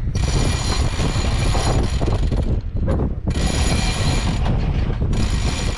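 A mechanism running in three stretches, the first about two and a half seconds long and the next two shorter, with short pauses between.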